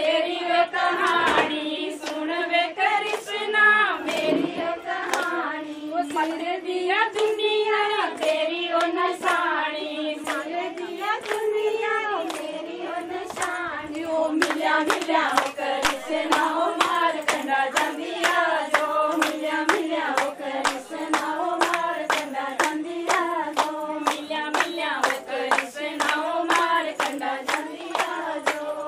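A group of women singing a Pahari folk song together in unison, with steady rhythmic handclaps keeping the beat.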